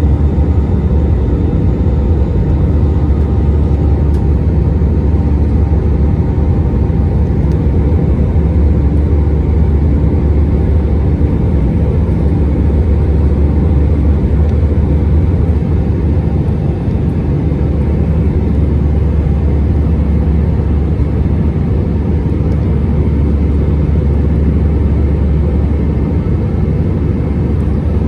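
Steady cabin noise of an Airbus A319 in flight: a deep, even rumble of engines and airflow with a faint steady hum above it.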